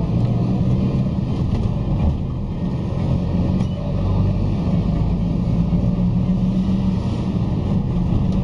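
City bus engine and road noise heard from inside the moving bus's cabin: a steady low drone.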